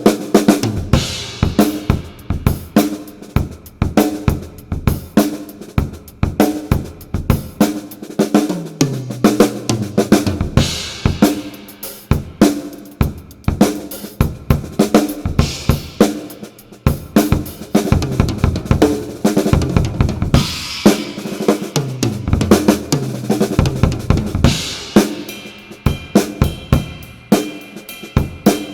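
Acoustic drum kit played in a continuous groove, with kick, snare, hi-hat and cymbals and a few descending tom fills. It is recorded through a Yamaha EAD10 kit-mounted microphone with its built-in reverb turned up four notches.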